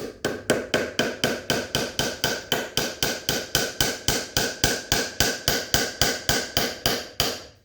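A hammer tapping wooden dowels in rapid, even blows, about four a second, with a slight ring to each strike. The blows stop abruptly near the end.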